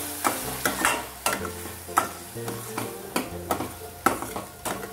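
A steel spoon stirring a thick green masala paste in a stainless steel kadai, clinking and scraping against the pan several times a second while the paste sizzles in hot oil.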